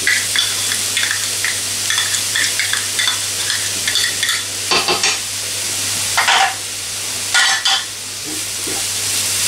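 Grated carrots, onion and diced pepper frying in clarified butter in a pan, sizzling steadily while a wooden spatula stirs and scrapes through them. Three louder strokes of the spatula come in the second half.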